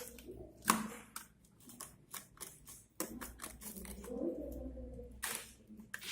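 Product packaging being opened by hand: sharp clicks and snaps with soft rustling in between as the sealed box is worked open.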